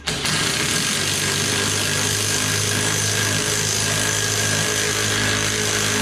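Impact wrench hammering continuously as it drives the screw of a tractor-tire bead breaker, pulling the breaker's arm down to push the tire bead off the rim. It starts abruptly and cuts off sharply about six seconds later.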